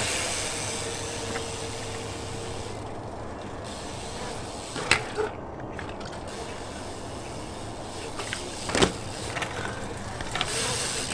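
BMX bike riding a concrete skatepark: a steady hiss of tyres rolling on concrete. There are sharp knocks about five seconds in and about nine seconds in as the bike strikes and lands off the obstacles during a trick line.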